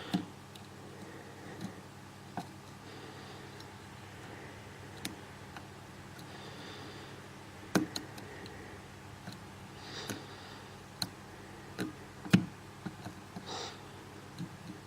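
Metal lock pick and tension wrench working the pins of a cutaway 7-pin dimple lock during single-pin picking: irregular small clicks and light scraping, with a louder click about 8 seconds in and another about 12 seconds in.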